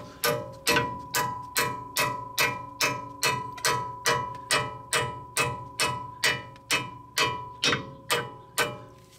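Hammer blows on a steel brake part, struck steadily about two and a half times a second, each blow ringing with a clear metallic tone, as the caliper assembly is driven into place on the front brake rotor.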